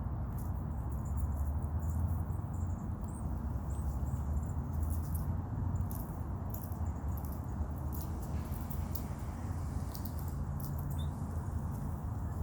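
A squirrel eating a peanut: many quick, irregular clicks of nibbling and shell-gnawing, with a few brief high hiccup-like squeaks, over a steady low background rumble.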